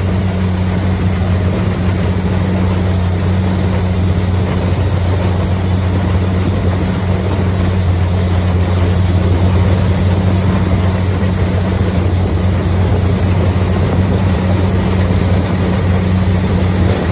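Kubota DC-70 Plus rice combine harvester working through standing rice: engine and threshing machinery running at a constant, even drone with a steady low hum, while the header cuts the crop.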